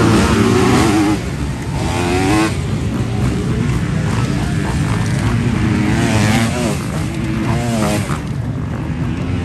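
A pack of motocross bikes accelerating hard off the start and into the first corners, many engines revving up and falling back at once.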